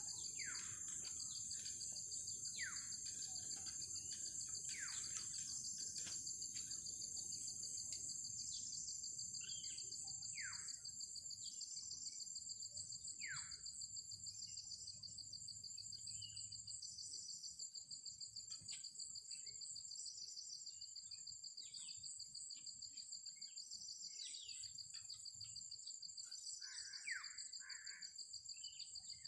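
A steady, high, pulsing insect chorus, crickets by their sound. Over it, a bird gives a short falling call every couple of seconds.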